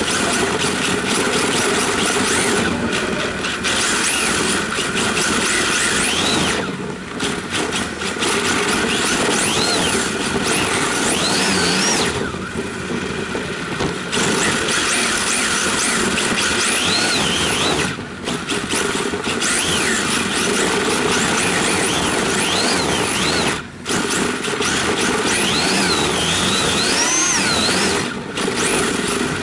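Electric radio-controlled drift car heard from a camera mounted on its body: a continuous rush of motor and tyre noise, with a high whine that glides up and down as the car accelerates and slides. The sound dips briefly several times.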